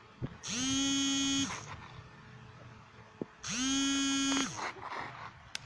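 A buzzer-like tone sounds twice, each time for about a second, with about two seconds between them. Each buzz holds one steady pitch, rising quickly at the start and dropping as it cuts off.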